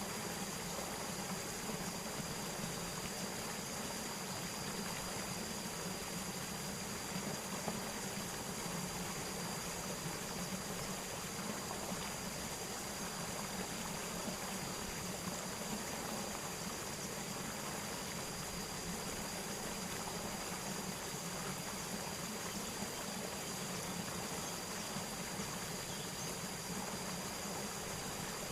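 Steady rushing noise like flowing water, with a continuous high thin tone.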